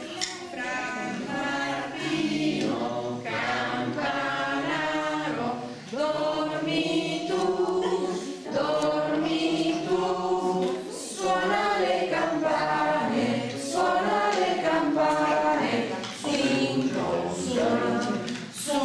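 A group of voices singing a song together without instruments, in phrases of a few seconds each.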